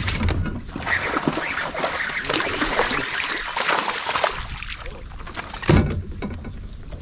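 A hooked bass thrashing and splashing at the water's surface beside a kayak, with a thump near the end.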